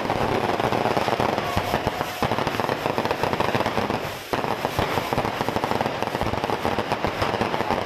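Fireworks going off: a dense, rapid crackle of many small bangs in quick succession, with a brief lull about four seconds in.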